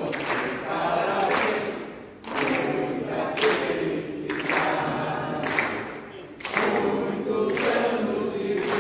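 A group of people singing together, with hand-clapping.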